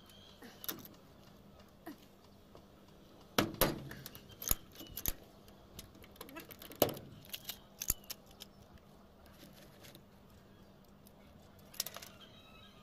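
Hand pop-rivet gun squeezed on a sheet-metal roof patch: a series of sharp metallic clicks and snaps, with tools clinking on the corrugated sheet. The loudest snaps come between about three and eight seconds in.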